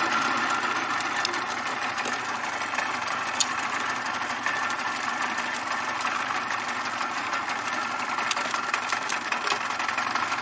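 Boat motor running steadily at low trolling speed, with a few sharp ticks over it.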